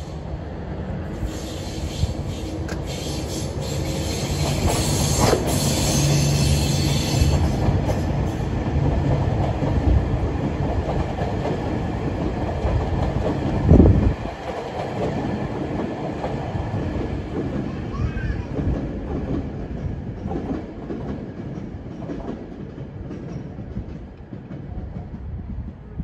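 New Tokyu 3000 series cars, towed unpowered behind a locomotive, rolling past on the rails with a heavy rumble of wheels. The rumble builds through the first half and eases off toward the end, with one brief loud thump about halfway through.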